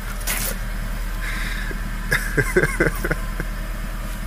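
Car idling with a steady low exhaust hum while soap solution sits in the tailpipe. There is a brief hiss near the start and a quick run of short sputters a little past halfway.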